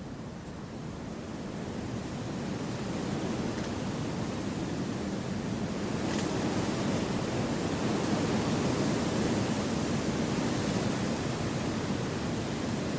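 Wind blowing through forest trees: a steady, even rushing that swells over the first few seconds and holds.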